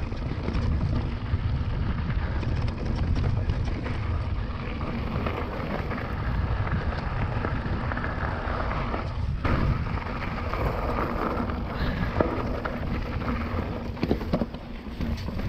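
Wind rumbling on the microphone of a handlebar- or chest-mounted camera over the crunch of mountain-bike tyres rolling on a gravel and dirt trail, with scattered clicks and rattles from the bike.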